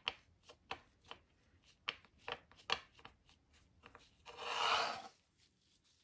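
Fingers pressing a foam texture sponge down onto a sheet of polymer clay: a string of light, soft taps, then a rough rustling scrape of about a second near the end as foam and clay are handled.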